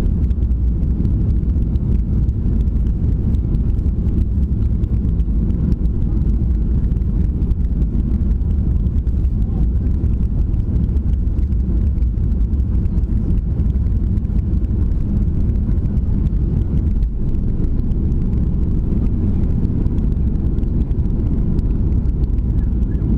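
Inside the cabin of a Boeing 737 during takeoff: a loud, steady, deep roar of the jet engines and rushing airflow, heard from a window seat.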